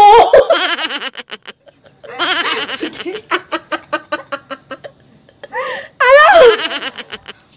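Two women laughing hard in rapid, repeated bursts, with a brief shouted word about six seconds in.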